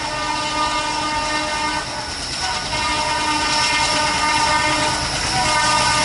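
ALCO diesel locomotive sounding its horn in long blasts with short breaks between them, over the rumble of the engine and train, growing louder as the train approaches.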